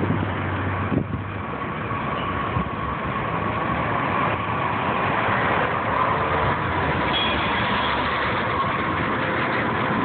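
Two-car Muni Breda light-rail train approaching and drawing alongside, with a steady electric whine that slowly drops a little in pitch, over the hiss of road traffic.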